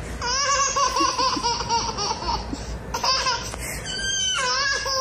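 A baby laughing hard: high-pitched, pulsing peals of laughter in three bouts with short breaks between them.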